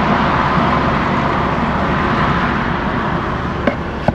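Steady rushing noise and low rumble inside a vehicle's cab with the engine running, and a couple of sharp clicks near the end as the camera is turned.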